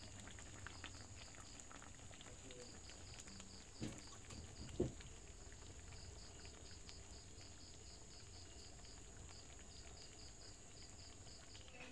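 Faint insects chirping: rows of short, evenly spaced high chirps over a steady high whine, with two soft knocks about four and five seconds in.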